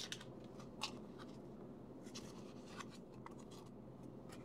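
Trading cards being handled and shuffled between the fingers: scattered soft flicks and rustles of card stock, the sharpest about a second in, over a faint steady background hum.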